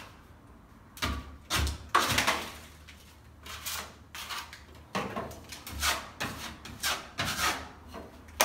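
Steel plastering knife scraping across a plaster ceiling patch and being wiped clean on a hawk: a quick run of short scraping strokes, starting about a second in.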